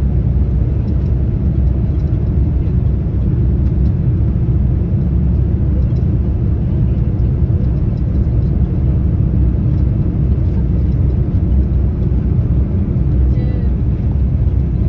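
Steady low rumble of engine and airflow noise heard inside the cabin of a Boeing 787-9 Dreamliner descending on approach to land.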